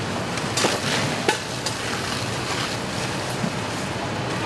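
Steady rushing noise of a burning semi-truck being hit with fire hose streams, with a few sharp pops and cracks about a second in.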